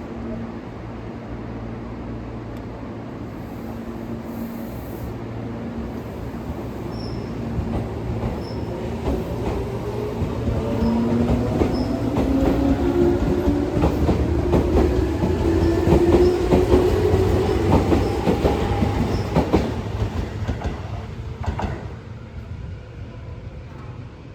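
Tobu electric train set 11652F pulling out of a station: a steady electrical hum at first, then the traction motors' whine rising steadily in pitch as it accelerates, with clicking of wheels over rail joints as it passes, growing louder and then fading away near the end.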